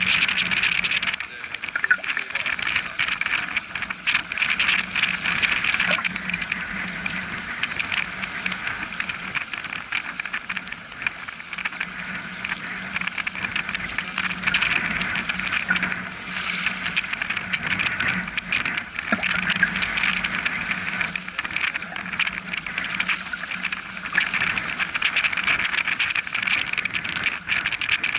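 Choppy sea water washing and slapping around a wading angler, with a steady rush of waves.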